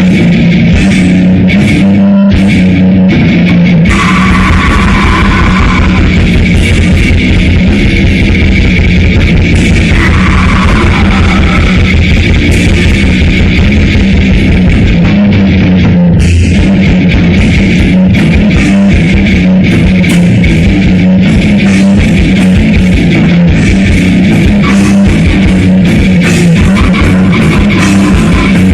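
Grindcore band playing at full volume: distorted electric guitar and drum kit, with fast, dense drumming.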